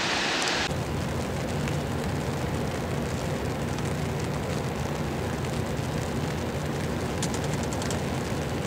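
Low, steady drone of large ships' engines running at the quay, with a hum in it, after a short steady hiss that cuts off abruptly under a second in. A few faint ticks come near the end.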